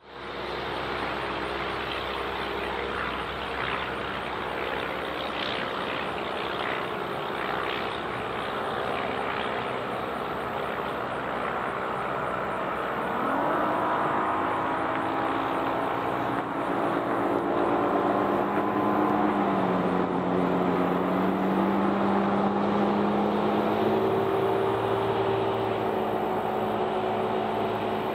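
An engine running steadily. Its pitch rises about halfway through, dips briefly, then rises again near the end.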